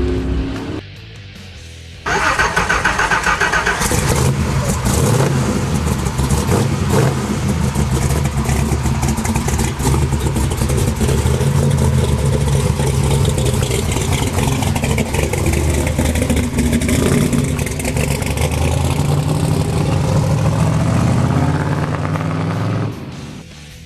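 Boss 429 big-block V8 in a Mustang running hard under load, its pitch climbing and falling as it revs through the rev range. It starts suddenly about two seconds in and drops away just before the end.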